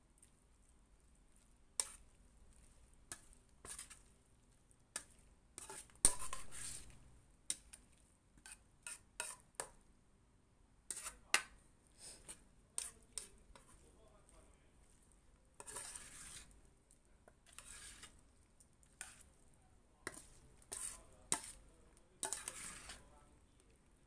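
Metal spatula tossing a wet noodle-and-seafood salad in a stainless steel mixing bowl: irregular clinks of metal on metal, with a few longer scrapes along the bowl.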